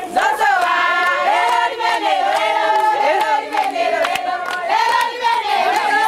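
A group of voices singing a song together, with hands clapping along.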